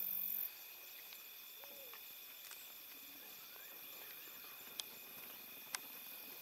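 Quiet chorus of insects in the bush, a steady high-pitched trilling with several pitches layered, a louder high buzz for the first half second. Two sharp clicks near the end.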